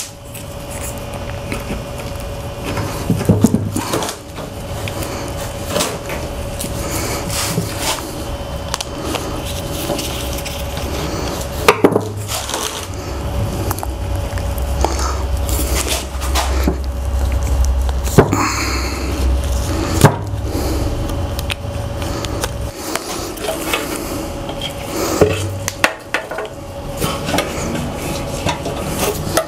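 Hands in nitrile gloves fiddling with small fuel-system parts at a workbench: scattered light clicks, knocks and rubbing as the parts are handled, over a faint steady hum.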